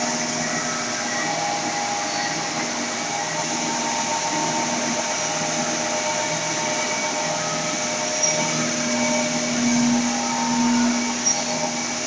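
Sawdust briquetting press machine running, its electric motor and drive humming steadily with a whine over it, swelling a little louder near the end with a couple of short clicks.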